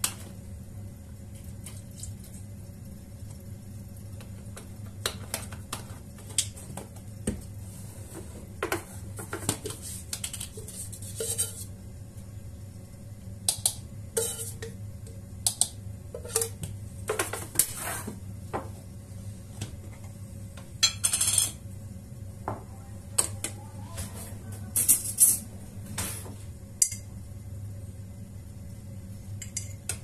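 Kitchen handling sounds: containers, a spoon and a metal tin clinking and tapping on a stone countertop in scattered, irregular knocks, with short rustles of a carton being handled.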